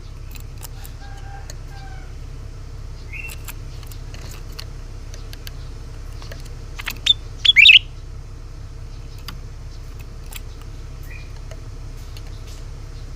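A cucak ranting bird giving sparse, short, sharp chirps, loudest in a quick cluster about seven seconds in, with a few single notes before and after. Faint clicks and a steady low hum run beneath.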